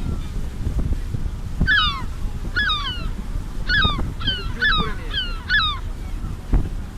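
Seagulls calling: a string of about seven short, falling cries. They come over a steady low rumble of wind and boat noise.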